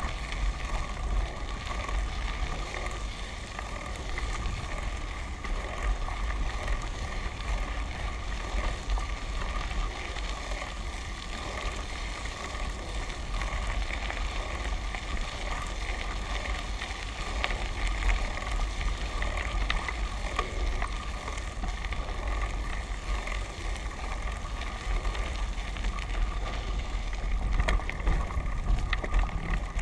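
Wind rumbling on the microphone of a camera moving along a bumpy dirt track, over the steady rattle and rolling of the vehicle it is mounted on.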